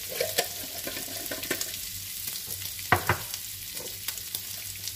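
Beef and chorizo with a spoonful of minced garlic sizzling steadily in a nonstick frying pan, with scattered small crackles. Two sharp taps about three seconds in are the loudest sounds.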